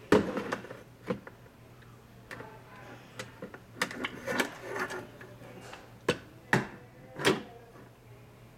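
Irregular clicks and knocks of a plastic Titanic model being handled, its parts tapping and rattling under the fingers. A busier run of clicks comes around the middle and three sharper knocks near the end.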